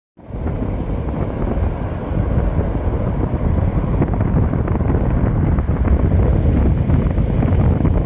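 Wind rumbling heavily on the microphone over the wash of surf breaking and running up a pebbly beach; the sound cuts in abruptly at the very start.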